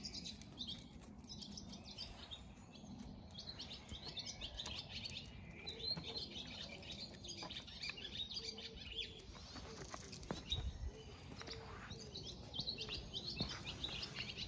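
Songbirds chirping and singing, a run of short high chirps and phrases.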